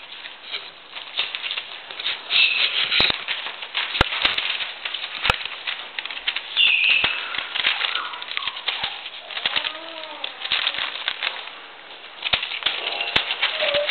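Newspaper crackling and rustling under a litter of Polish Tatra Sheepdog puppies scrambling and wrestling on it, with quick clicks of paws and a few short high squeaks.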